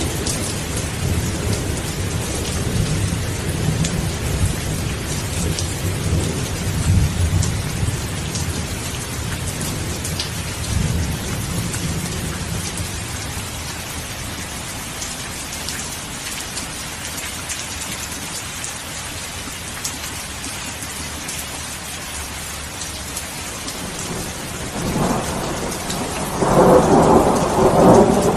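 Steady rain with thunder rolling in the first half, fading to just rain, then a louder thunderclap building near the end.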